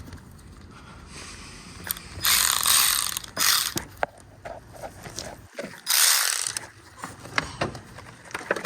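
Socket ratchet clicking in two short runs, loosening the 10 mm bolts that hold an ignition coil on a truck engine.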